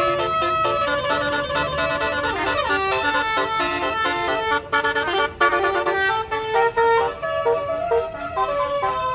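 Basuri multi-trumpet bus horn playing a tune: a run of held horn notes stepping from pitch to pitch, often several sounding together.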